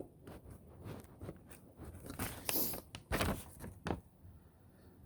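Light clicks and scraping of small wire connectors being handled and pushed onto ignition switch terminals, in a few short bursts.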